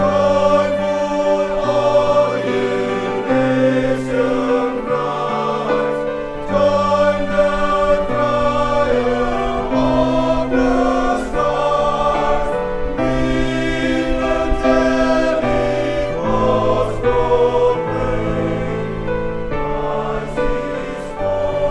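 A men's church choir singing a Christmas hymn in harmony, in long held chords with strong low voices.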